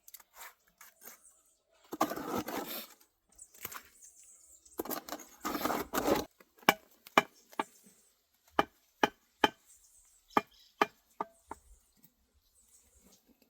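Two spells of scraping, then a run of sharp knocks, about two a second, from a hand tool striking stone or brick while the ground for a brick fire-pit frame is chipped and levelled.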